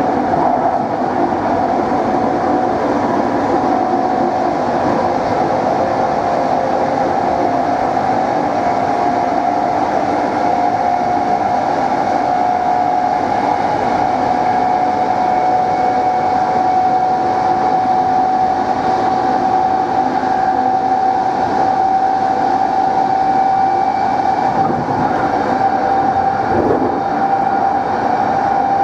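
NS Plan V (Mat'64) electric multiple unit's traction motors running, a steady whine that rises slowly in pitch as the train gathers speed, over a continuous rumble of the running train.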